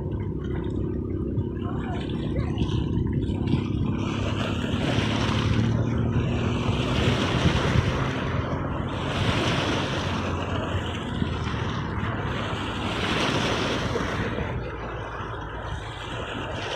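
Sea waves surging and washing ashore, rising in several swells of hiss over a steady low rumble of surf and wind on the microphone.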